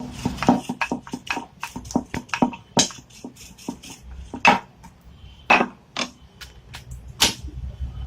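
Rolling pin knocking and clattering against a rolling board as a ball of dough is rolled out flat: an irregular run of short knocks, with a few louder clacks in the second half.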